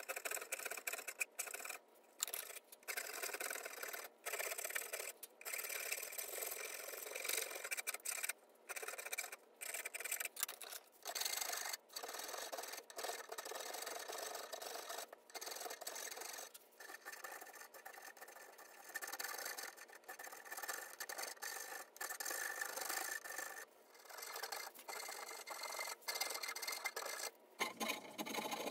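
Round file rasping across a wooden knife handle, shaping it in repeated strokes with short breaks between them.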